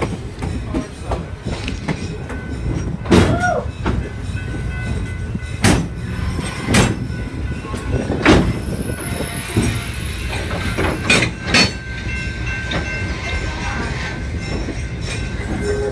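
A moving train heard from its open end platform: a steady low rumble of wheels on rail, broken by half a dozen sharp metal clanks and knocks from the couplings and running gear.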